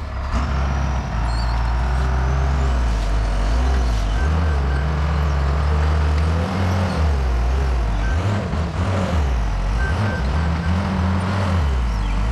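Case 850K crawler bulldozer's diesel engine working under changing load, its pitch rising and falling. A few short runs of reversing-alarm beeps sound now and then.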